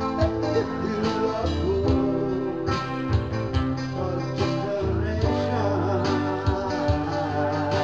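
Live music without words: a strummed acoustic guitar over a steady bass and beat, with a wavering melody line above.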